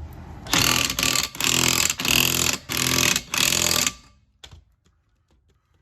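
A power tool, used on the car's rear suspension, runs in about six short bursts, each about half a second long, then stops about four seconds in.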